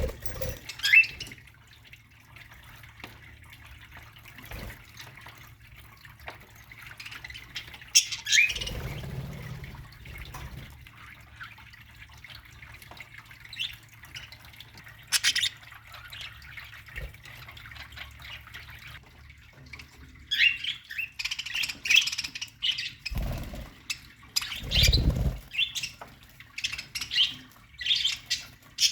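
A colony of budgerigars chirping and squawking in scattered short calls, growing busier near the end, with a few low rumbles between them.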